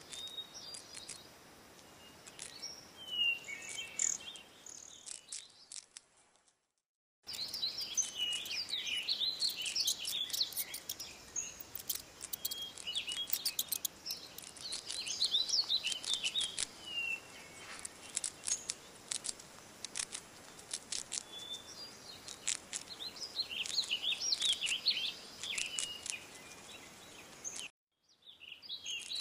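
Rapid high-pitched chirping and twittering calls with quick sharp clicks among them, broken twice by a moment of silence.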